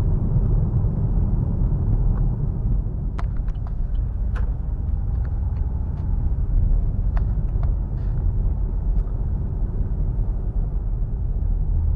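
Steady low rumble of a car's road and engine noise heard from inside the cabin while driving, with a few faint clicks.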